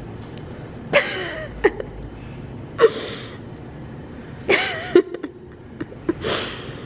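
A person's short, breathy gasps, four of them a second or two apart, with a few brief clicks between.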